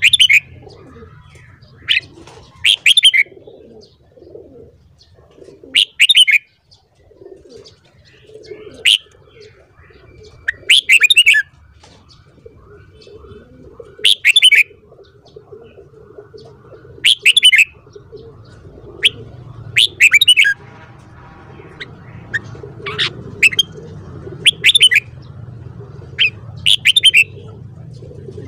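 Red-whiskered bulbul singing: short, loud, bright song phrases repeated every two to three seconds.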